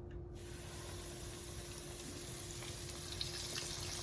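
Basket of coated chicken pieces going into deep-fryer oil set at 400: the oil breaks into a sizzle about half a second in and grows steadily louder, with crackling pops toward the end.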